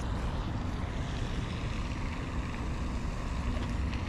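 Wind rumbling on the microphone: a steady, low, blustery noise with a faint hiss over it and no distinct events.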